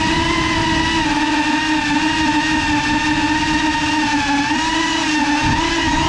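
Cinelog 35 cinewhoop FPV drone's motors and ducted propellers whining steadily, heard from the GoPro riding on it, the pitch wavering slightly as the throttle changes.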